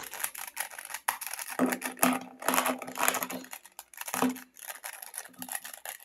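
Plastic puzzle cube (YuXin Treasure Chest cube) being handled and twisted in the hands: irregular light clicks and clacks of its plastic pieces.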